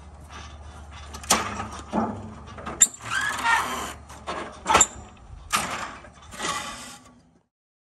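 Portable sheet-metal brake being worked on a painted metal sheet: a string of metallic clanks and clacks from the brake's clamp and bending handle, the sharpest two with a brief high ring, and the sheet rattling and flexing between them. The sound stops abruptly near the end.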